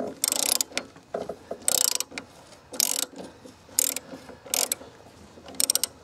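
Socket ratchet wrench clicking in short bursts of rapid clicks, about once a second, as its handle is swung back and forth to undo a lawn mower's blade bolt.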